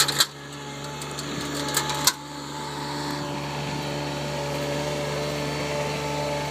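Engine of a compact articulated loader running steadily, with a few sharp metallic clanks in the first two seconds as the level builds.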